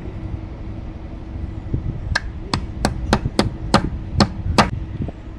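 Hammer tapping a nail held as a centre punch on a metal speargun trigger plate, marking hole positions for drilling: about eight quick, sharp taps starting about two seconds in.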